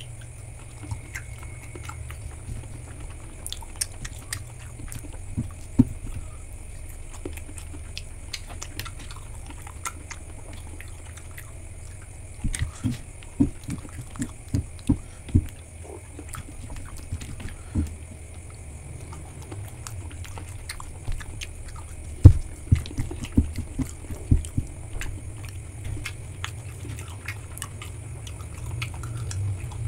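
Close-miked chewing and biting of pork satay, with scattered wet mouth clicks and two runs of louder bites, one about halfway through and one about three quarters of the way in. A steady low hum sits underneath.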